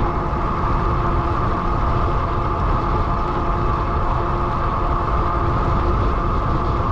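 Lectric XP e-bike riding at about 20 mph: wind on the microphone with a steady buzz and whine that holds an even pitch, which the rider puts down to a noisy, buzzing front fender.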